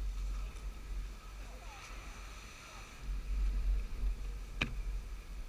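Wind buffeting the microphone as a low, uneven rumble, with faint distant voices. A single sharp click about four and a half seconds in.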